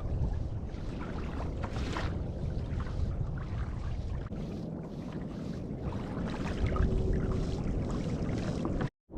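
Wind buffeting the microphone over open water from a kayak at sea, a steady low rumble with faint splashes and knocks mixed in; it cuts off suddenly near the end.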